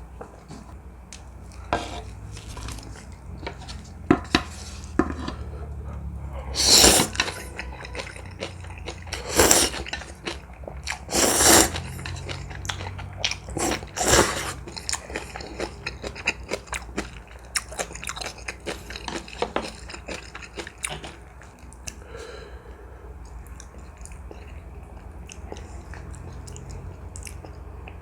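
Close-miked eating of ramen noodles with dumplings and cabbage kimchi: wet chewing with many small crunches, and a few loud slurps, each about a second long, in the first half. The chewing becomes softer and sparser later on, over a steady low hum.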